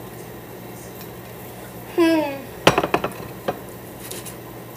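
Dishes clinking and knocking: a quick run of sharp clinks about two and a half seconds in, then a couple of single ones, over a steady low hum.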